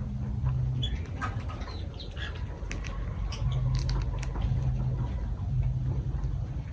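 Lovebirds giving scattered short chirps amid small clicks and scratching, over a low hum that comes and goes.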